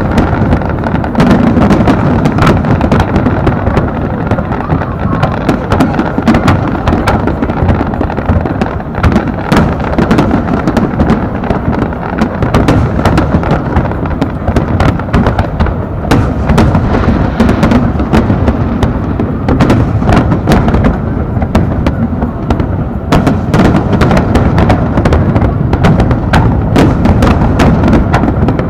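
Large fireworks display going off in a continuous barrage: overlapping shell bursts make an unbroken low rumble, with many sharp cracks throughout.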